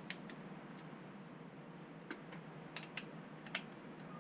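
Faint, scattered light clicks of socket cap screws being pressed into recesses in a 3D-printed plastic part and handled in the fingers. The clicks come a few at a time over a low steady background hum.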